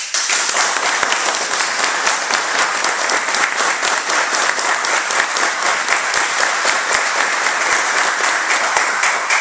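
A group of people applauding, a dense run of hand claps that starts all at once and fades out near the end.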